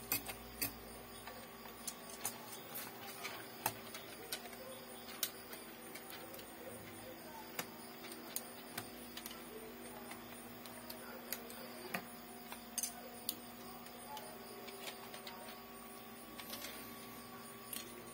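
Irregular light clicks and taps as a Lenovo V330-15IKB laptop's plastic case and parts are handled and pried during disassembly. A steady faint hum runs underneath.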